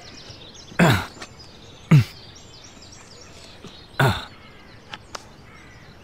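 A man grunting with effort three times as he hauls himself up onto a roof, each grunt short and falling steeply in pitch, about a second or two apart.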